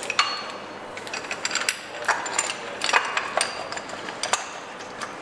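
Irregular metal clicks and clinks as an engine mounting bracket is offered up to the front of a Ford 1.8 TDCi diesel engine and its bolts are started by hand.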